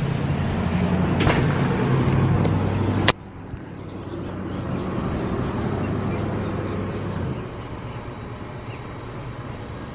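Steady low hum of a running motor, with a sharp click about three seconds in, after which the sound is quieter. The hum stops about seven seconds in.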